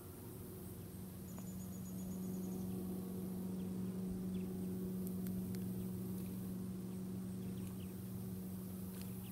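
Steady low mechanical hum of a motor running at an even pitch, with a short thin high-pitched whine about a second and a half in and a few faint clicks.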